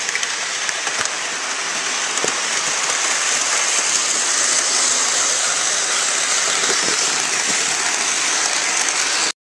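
HO scale model train running along its track: a steady rolling hiss with a few faint clicks, cutting off abruptly near the end.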